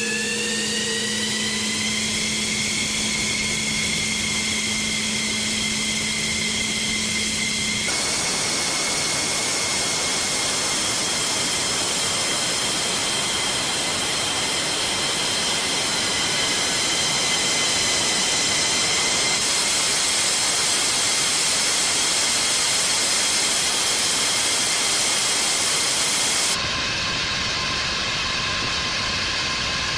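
F-15E Strike Eagle jet engine whine on the ramp: a turbine whine rises in pitch over the first two seconds as it spools up, then holds as a steady high whine over a loud rush of jet noise. A low steady hum sits under it at first, and the sound changes abruptly about eight seconds in and again near the end.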